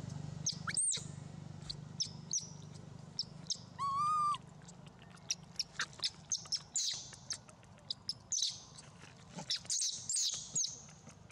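A string of short, high-pitched animal chirps and squeaks, with one rising whistle about a second in and a longer call with a wavering pitch about four seconds in.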